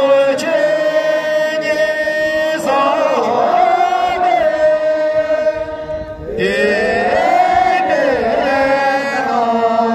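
A large group of monks and protesters chanting together in unison, with long held notes and slow rises and falls in pitch. The chant comes in three phrases, with short breaks about two and a half and six seconds in.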